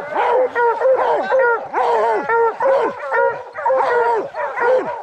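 A pack of hunting hounds barking at a treed bear, several dogs overlapping at about three barks a second, each bark dropping in pitch.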